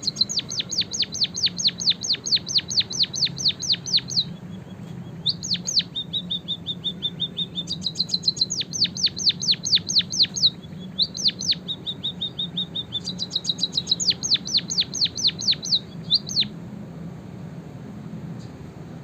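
Cage songbird singing canary song: loud, fast trills of sharp falling notes, about five a second, in phrases of two to four seconds, alternating with softer, lower, flatter trills. The song stops a couple of seconds before the end, leaving a low steady hum.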